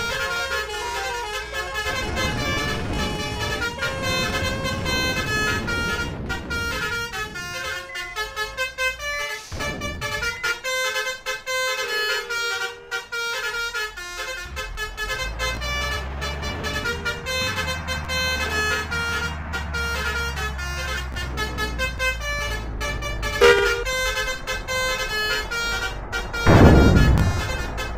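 Indonesian bus 'telolet' basuri musical horns playing a rapid melody of short notes that keep changing pitch, over the low running of bus engines. A loud burst of sound comes near the end.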